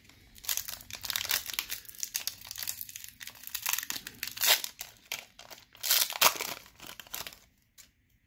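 Plastic foil wrapper of a Pokémon XY Evolutions booster pack crinkling and tearing as it is torn open by hand, with two louder rips about four and a half and six seconds in. The crackling dies away near the end.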